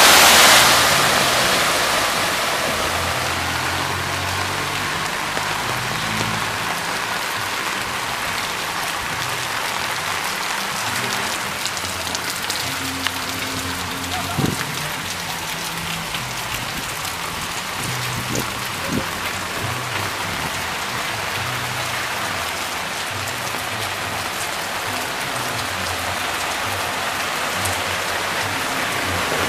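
Heavy rain on a flooded street: a steady hiss of rain and running water. It is louder at the start, where a bus drives past through the water, and eases over the first couple of seconds.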